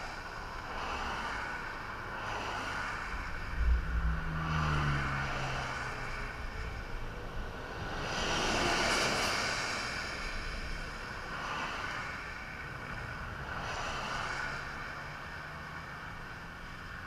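Highway traffic passing on wet pavement: vehicle after vehicle hisses by, each one swelling and fading, with the loudest pass about eight to nine seconds in. Just before four seconds there is a low thump, followed by an engine drone falling in pitch as a vehicle goes by.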